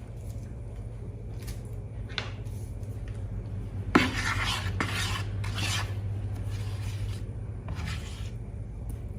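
A utensil scraping and stirring in a bowl of slime, with a sharp clack against the bowl about four seconds in and a run of louder scraping strokes after it, over a low electrical hum.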